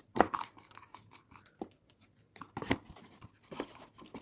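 Handling noise: a run of small, irregular clicks and rustles as objects are picked up and moved by hand, with a few sharper ticks between them.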